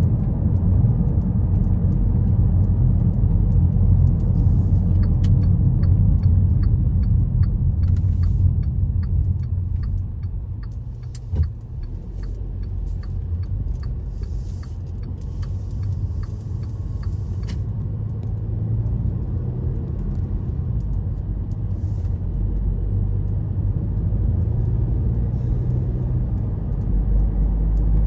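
Car cabin road noise while driving: a steady low rumble of tyres and engine. A run of light clicks and ticks sounds in the middle, with a single knock about eleven seconds in.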